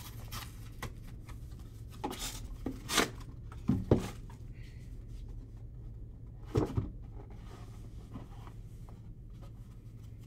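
Cardboard trading-card hobby box being handled: the inner box slid out of its outer sleeve, tipped, set down and its lid flipped open, giving a few short scrapes and soft knocks over a steady low hum.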